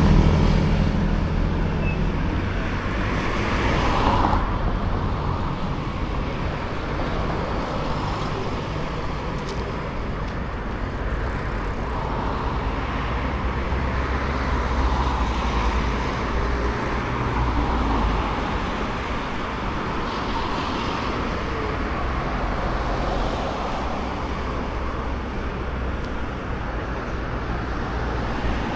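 Road traffic: a steady rumble of car engines and tyres, swelling as vehicles pass at the start and again about four seconds in.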